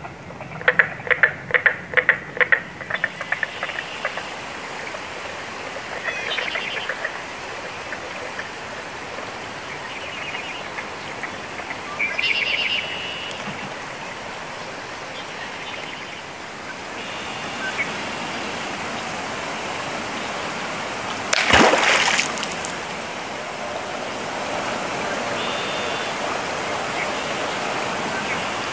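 Marsh ambience: a steady wash of running water with short bird calls now and then. A quick run of clicks starts about half a second in and lasts a couple of seconds, and a loud splash comes about three-quarters of the way through.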